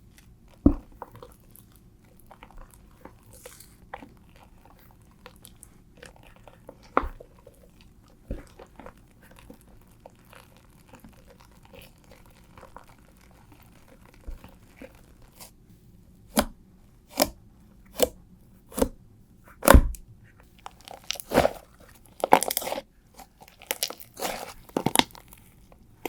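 Slime being pressed and squeezed by hand, crackling and crunching. Faint scattered crackles at first, then, from about two-thirds of the way in, a run of louder crunchy squishes under a second apart that grows denser near the end.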